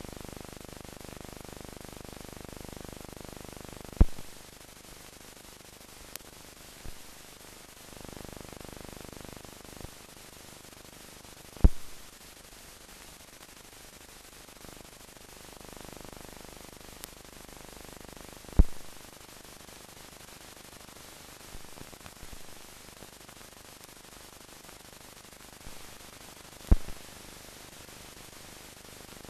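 Steady hiss of a silent archive film transfer, broken by four sharp pops roughly seven to eight seconds apart and a few fainter clicks.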